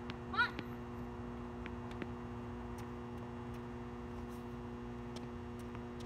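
Tennis balls struck by rackets and bouncing on a hard court: scattered sharp knocks over a steady hum. A brief high squeak comes about half a second in.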